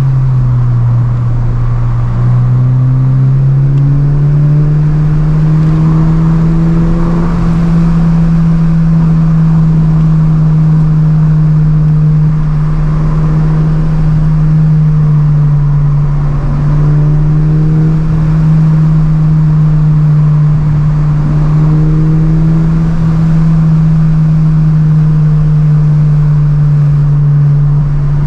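Subaru BRZ's flat-four engine running with road noise while driving. The engine note holds mostly steady, dipping and climbing back several times.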